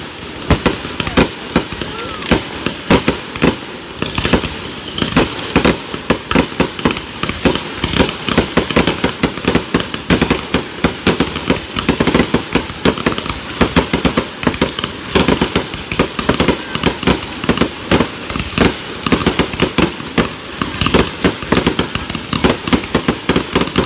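Aerial fireworks going off in a continuous, rapid barrage of bangs and crackles, many reports a second.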